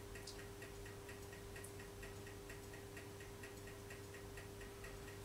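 Faint steady hum with a light, even ticking, about four ticks a second.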